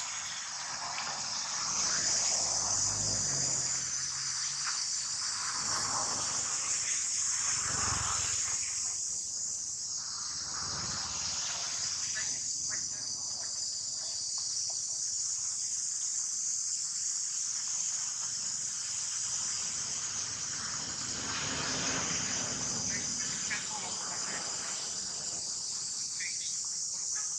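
A steady high-pitched insect chorus drones without a break, with a low rumble a few seconds in.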